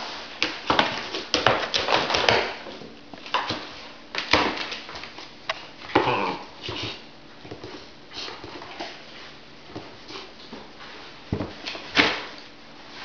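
Giant Schnauzer puppy scrabbling and turning inside a plastic basket, its claws scratching and its body knocking against the hard plastic in irregular bursts, with a sharp knock near the end.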